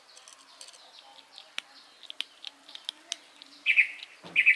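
A kitten crunching dry kibble: a run of sharp, irregular clicks as it bites and chews. Birds chirp faintly in the background, and two loud short bursts stand out near the end.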